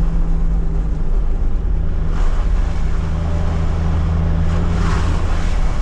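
Nissan Patrol GQ's TD42 4.2-litre straight-six diesel engine running steadily under load, driving along soft beach sand. A short rush of noise rises over it about two seconds in and again near the end.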